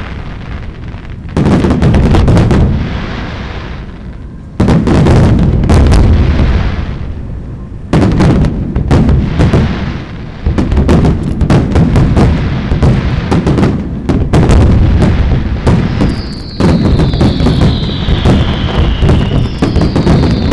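Fireworks display: volleys of rapid bangs and crackling shell bursts. Each volley starts suddenly and fades, and new ones come every few seconds. Later the crackle becomes almost continuous, and near the end there are two high whistles that fall in pitch.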